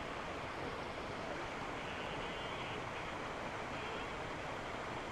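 Steady rushing of flowing water, an even noise with no rhythm.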